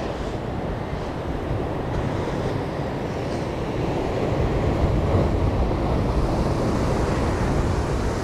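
Sea surf breaking and washing over rocks, with wind buffeting the microphone: a steady, loud rush heavy in the low end.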